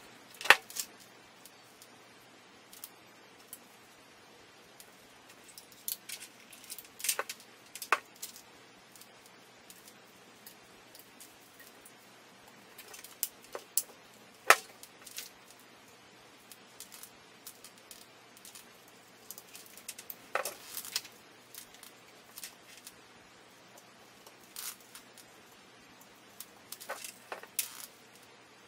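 Scattered small clicks and taps as electronic components are pushed into a synthesizer's power-supply circuit board and the board is turned in the hands. Two sharper clicks stand out, one just after the start and one about halfway.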